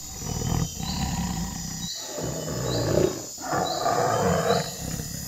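Sound-designed big-cat roars and growls for a tiger–gorilla hybrid: three long, rough roars in a row. A faint high chirp repeats about once a second behind them.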